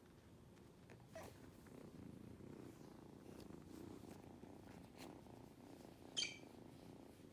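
Kitten purring faintly and steadily, with one short, high squeak about six seconds in that is the loudest sound.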